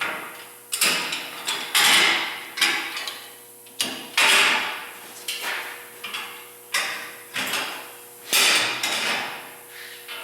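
Angle-iron frame of a fold-down table-saw outfeed table being raised and handled on its bolt pivots: a series of metal clanks and knocks, about one a second, each with a short ringing decay.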